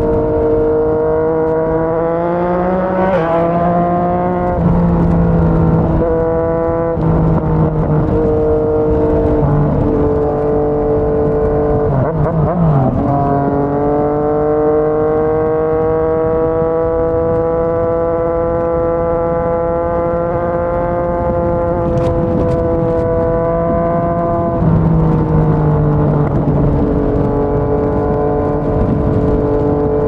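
Yamaha MT-09's inline three-cylinder engine through a Yoshimura R55 slip-on exhaust, running under way at cruising speed. Its pitch climbs about 3 s in, wavers around 12 s, rises slowly through the middle and shifts again near 25 s, over a steady rush of wind.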